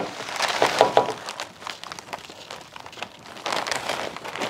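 Zip-top plastic bag crinkling as brittle pieces of freeze-dried egg slide off a metal freeze-dryer tray into it, with irregular crackles and light clicks of the pieces against the tray and bag, busiest near the start and again near the end.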